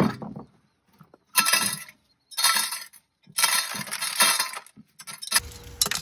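Dried corn kernels being twisted off the cob by hand and clattering into a metal can, in about four separate bursts with short pauses between them. A low rumble sets in near the end.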